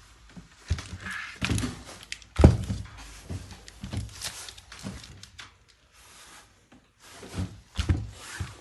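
Irregular thuds and knocks of a heavy hydraulic pump being handled on a hard surface. The loudest thud comes about two and a half seconds in, and there is a quick cluster of knocks near the end.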